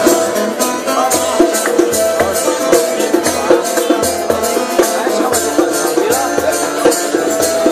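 Acoustic guitar music with a shaker rattling on a steady beat.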